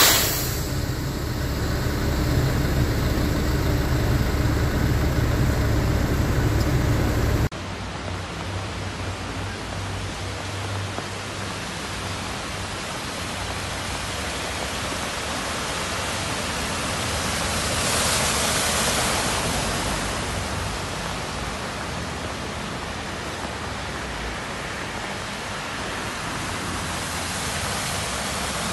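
Steady hiss of heavy rain and running floodwater on a street, under a low rumble of vehicle engines for the first seven seconds or so. About two-thirds of the way through the hiss swells louder for a couple of seconds.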